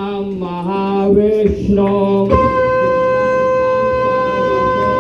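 Conch shell blown in long held notes. The pitch shifts a few times, then jumps to a higher, steady note a little over two seconds in.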